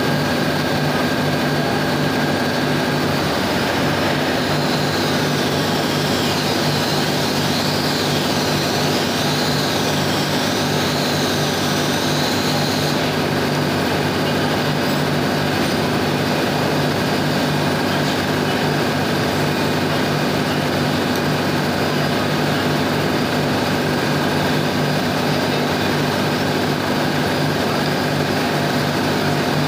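Ship's engine-room machinery running with a loud, steady hum and drone. A wavering high whine rises and falls from about four seconds in until about thirteen seconds in.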